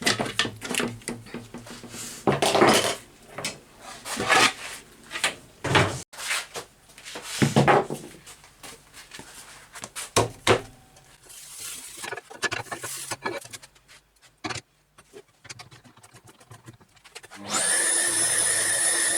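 Irregular rubbing and scraping strokes of sandpaper and wood being worked by hand, some short and some lasting up to a second, with pauses between them. Near the end a loud, steady machine whine with a high tone starts suddenly and keeps running.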